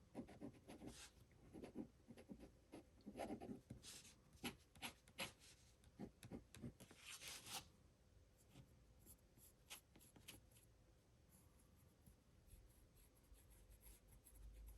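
Faint scratching of a very fine fountain pen nib writing on paper in short strokes, tested after smoothing a nib that had been catching on the page. The strokes stop about eight seconds in, leaving near silence.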